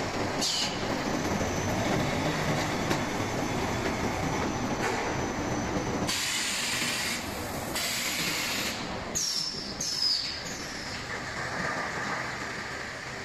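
Flour bag-packing line machinery running steadily, with a loud hiss for about a second around the middle and another soon after. Near the start, and three times a little later, there are short falling squeals.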